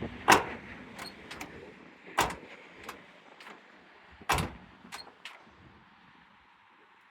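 1983 Chevy C10 pickup door being shut three times, about two seconds apart, to test how it latches on a newly installed striker bolt. Each shut is a sharp thud followed by a couple of lighter clicks.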